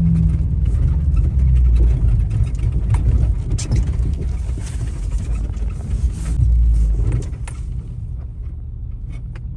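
Motor vehicle engine running with a low rumble, with scattered rattles and knocks, easing off somewhat near the end.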